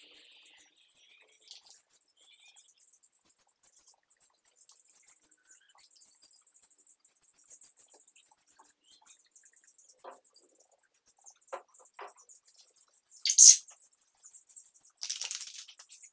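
Two short hisses from an aerosol spray-paint can laying primer, about two seconds apart near the end, the first the louder. A faint high twittering runs underneath, with a few light knocks shortly before the sprays.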